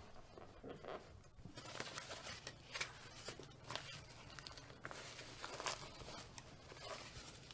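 Faint rustling and crackling handling noise, with a run of short scratchy clicks starting about a second and a half in, as a fabric blood pressure cuff is wrapped around an upper arm.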